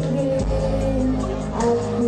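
Young girl singing a slow pop ballad into a microphone over instrumental accompaniment, amplified through a stage PA, holding long notes.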